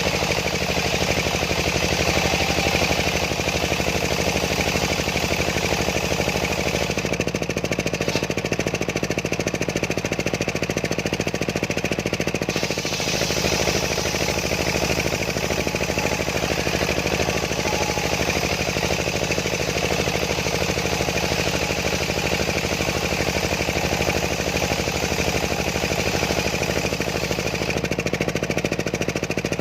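Homemade engine-driven circular sawmill running continuously while sawing a large sengon log, an engine note with a rattly, knocking texture. The sound changes about a third of the way through and again a little later.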